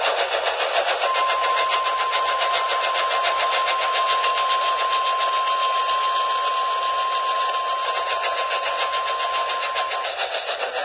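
NOAA Weather Radio 1050 Hz warning alarm tone, one steady high beep of about nine seconds that starts about a second in, heard through heavy, rapidly pulsing radio static. The tone signals that a warning message is about to be read.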